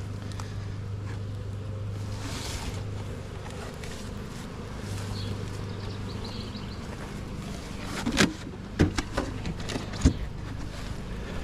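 Steady low hum, with a few sharp knocks of wooden hive frames against the hive box about two thirds of the way in.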